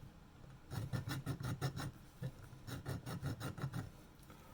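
Hand file rasping in quick short strokes, about six a second, across the edge of a bakelite espresso-machine boiler cap, smoothing off a chipped, sharp lip. Two runs of strokes, one starting about a second in and another after a short pause.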